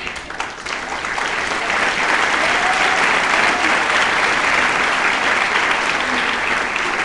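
Audience applauding, swelling over the first two seconds and then holding steady, with a voice or two calling out among the clapping.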